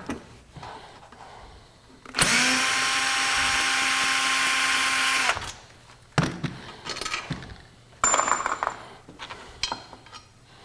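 Power drill-driver spinning out a Torx cover screw, running steadily for about three seconds and then stopping. Scattered light clicks and knocks of screws and tools being handled follow.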